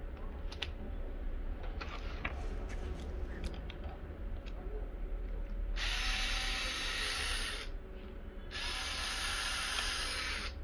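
Handheld cordless power tool running in two bursts of about two seconds each, with a short gap between, after a few seconds of handling clicks.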